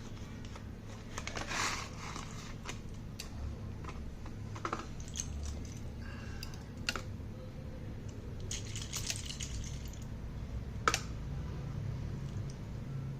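Slate pencils and their plastic packaging handled close to the microphone: scattered light clicks, taps and crinkles, with one sharper click about eleven seconds in, over a low steady hum.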